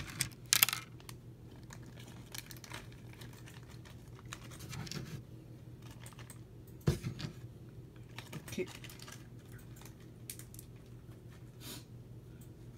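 Small plastic LEGO pieces being picked up and handled on a table: scattered light clicks and taps, the sharpest about half a second in and another about seven seconds in, over a faint low hum.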